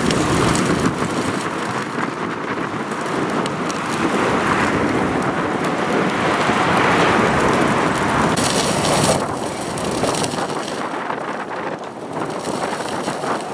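Wind-driven brush fire burning through dry brush: a dense, steady crackling and rushing of flames, with a brighter hiss for about a second around eight seconds in.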